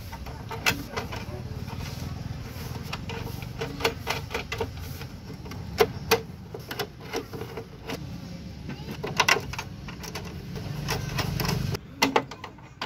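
Scattered clicks and knocks of small parts and hand tools being handled, over a steady low hum that cuts off near the end.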